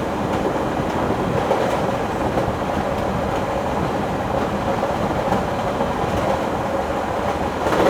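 A train running on its rails: a steady, dense running noise with a few faint clicks, swelling briefly near the end.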